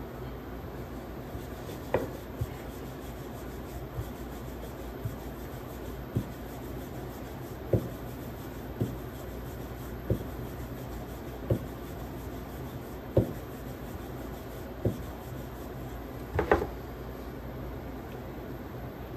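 Wooden rolling pin rolling out chapati dough on a round wooden board: soft rubbing with a short wooden knock every one to two seconds, and a louder double knock near the end. A steady low hum runs underneath.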